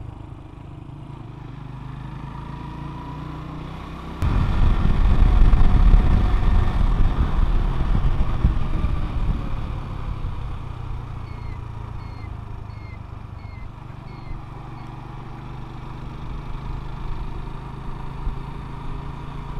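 Motorcycle engine running steadily on the move. About four seconds in, a sudden loud rush of wind noise on the microphone starts, and it eases off after several seconds.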